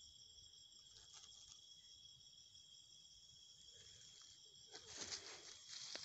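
Faint, steady chirring of night insects such as crickets, a constant high-pitched drone in several bands. Near the end a burst of rustling cuts in over it.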